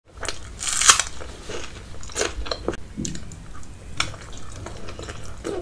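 Close-miked crisp bite into a raw red onion, loudest just under a second in, followed by several smaller crunches as it is chewed.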